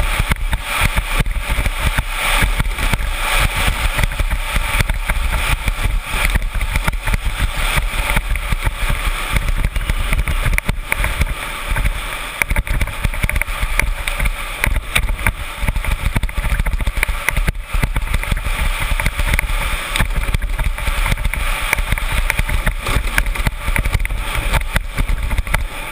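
Soapbox cart coasting fast downhill: a continuous rumble and rattle of its wheels on the asphalt, with wind rushing over the onboard microphone.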